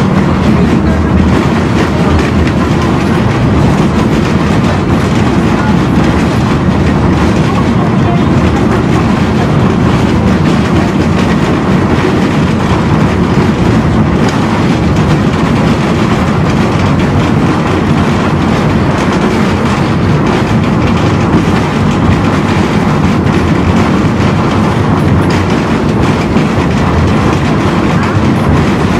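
Tram running along its rails, heard from inside the car: a loud, steady running noise of wheels on track and motors.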